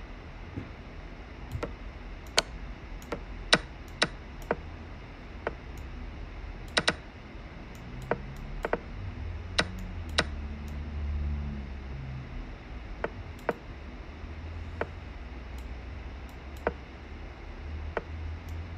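Irregular sharp clicks, sometimes in quick pairs, from moves being made in a fast online chess game: computer mouse clicks and the chess site's piece-move sounds.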